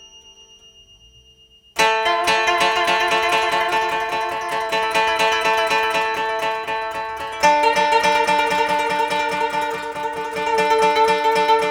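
Koto (Japanese thirteen-string zither) music. A note dies away, then about two seconds in the koto comes in loudly with rapid repeated plucked notes, moving to a new set of pitches about halfway through.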